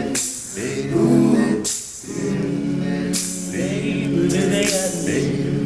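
All-male a cappella group singing sustained chords without words, with sharp hissing vocal-percussion hits about every one and a half seconds.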